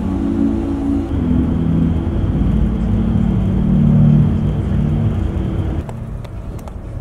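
Interior noise of a moving bus: a steady low engine drone and road rumble. About six seconds in it drops to a quieter, thinner sound with a few sharp clicks.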